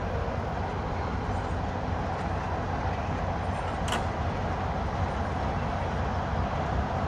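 A diesel train running with a steady low rumble, and one sharp click about four seconds in.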